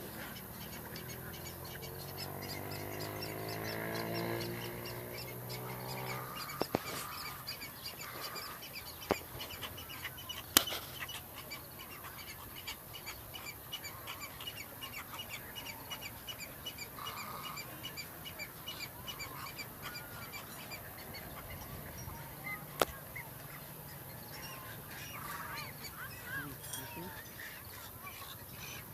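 A cattle egret colony calling: a dense chorus of many short, rapidly repeated calls from many birds at once. A low hum swells and fades over the first six seconds, and a few sharp clicks stand out.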